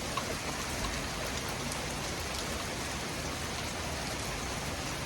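Torrential rain from a severe thunderstorm, a steady dense hiss with scattered drop ticks.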